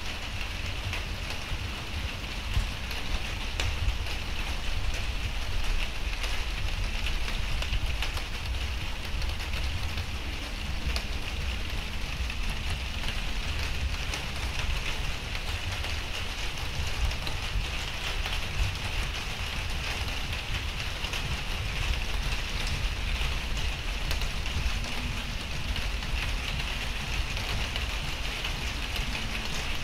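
Steady rain falling, with scattered individual drops ticking close to the recorder and a steady low rumble underneath.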